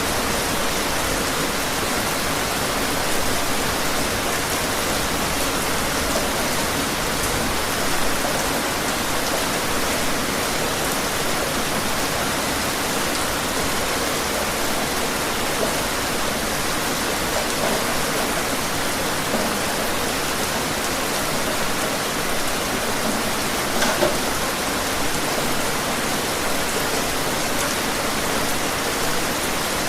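Steady, dense rainfall: an even hiss of rain with occasional distinct drops ticking on a surface.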